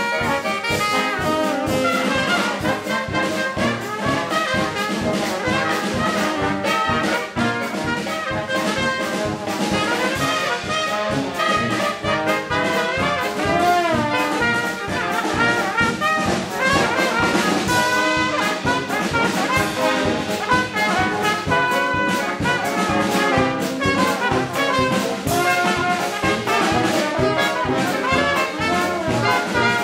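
Small Dixieland jazz band playing at a steady beat: tenor saxophone and trumpet carry the lines over tuba and drum kit.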